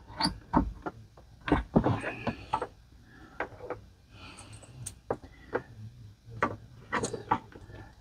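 Scattered clicks and knocks of a circuit card being handled and pushed into an Apple II Plus expansion slot, with faint rustling between them.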